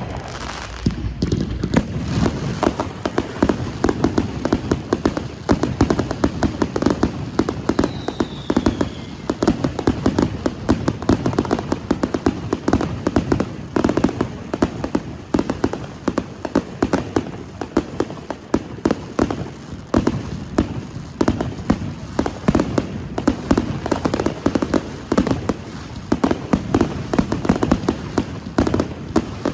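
Fireworks display going off: a dense, continuous run of bangs and crackles with one short falling whistle about eight seconds in.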